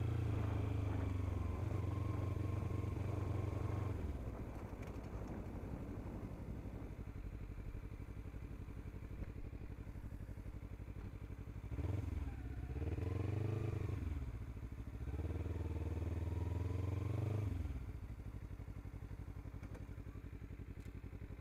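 Kawasaki Ninja 300's parallel-twin engine being ridden: revs dropping for the first few seconds, then running low and steady, revving up and down about halfway through, pulling steadily again for a couple of seconds, and easing off near the end.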